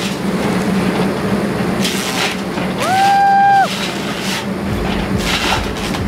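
Excavator running a hydraulic forestry disc mulcher, the disc spinning: a steady low engine drone under a rushing noise. About three seconds in, a clear whine rises, holds for under a second and drops away.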